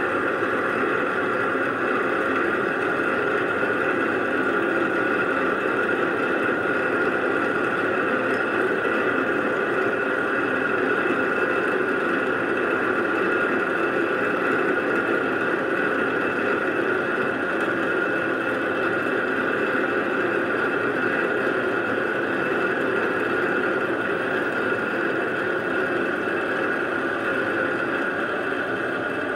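Small benchtop metal lathe running steadily, spindle turning, during a finishing boring pass with a boring bar inside a steel workpiece. The motor and gears give a constant high whine over an even mechanical hum.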